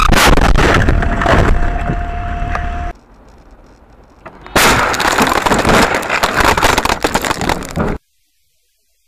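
Dashcam recordings of car collisions. Loud crash noise at the start ends abruptly about three seconds in. After a quieter gap, a second loud crash noise starts suddenly about four and a half seconds in and cuts off about a second before the end, leaving silence.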